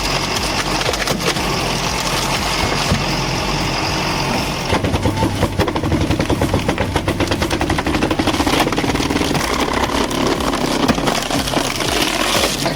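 An engine running steadily, taking on a rapid, even pulsing beat about five seconds in.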